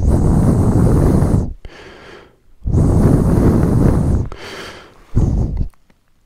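A man's breath blowing across the microphone: two long exhales of windy rumble about a second apart, then a softer one and a short puff.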